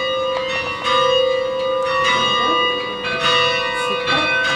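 Large tower bells hung for change ringing, rung from ropes, strike one after another at irregular intervals about once a second, each note ringing on over a steady hum.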